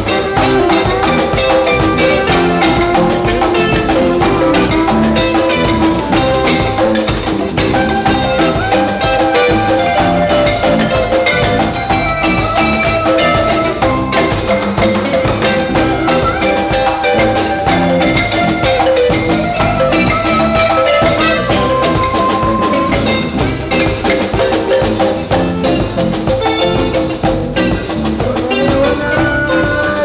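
Balafon, a West African wooden-key xylophone, played with mallets in fast runs of short ringing notes, over electric bass guitar and percussion in a live band.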